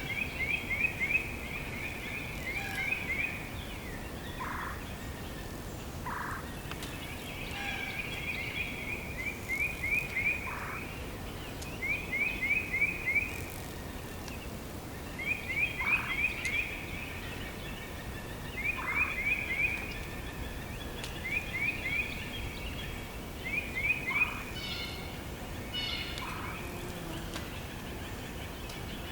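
Forest birdsong in spring: a songbird sings a rapid trill of quick falling notes, repeating the phrase every few seconds. Other birds give short single calls in between, over a steady hush of forest background.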